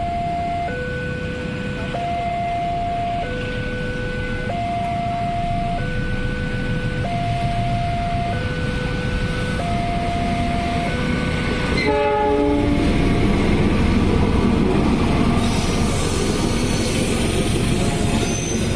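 A railway level-crossing alarm on the crossing's loudspeaker pole sounds an electronic two-tone signal, alternating low and high about every 1.3 seconds. About twelve seconds in, a train horn gives a short blast that drops in pitch. A passenger train then rumbles through the crossing, with wheel clatter and hiss growing louder near the end.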